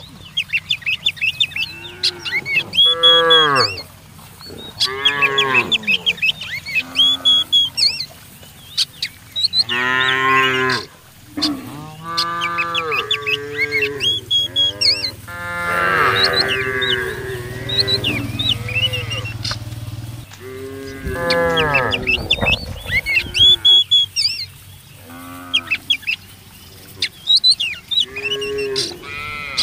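Cattle mooing again and again, one call after another and sometimes overlapping, some calls short and some held for a second or more. Birds chirp high in the background.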